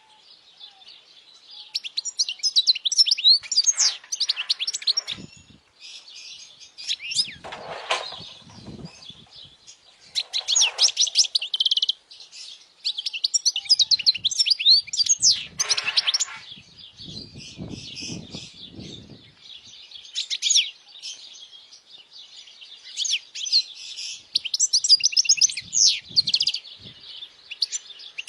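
European goldfinch singing: bursts of rapid, high twittering and chirping phrases separated by short pauses. A few soft low rustles come between some of the phrases.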